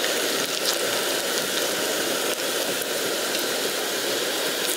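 Noodle-coated Maggi balls deep-frying in hot oil: a steady dense sizzle and crackle of the oil.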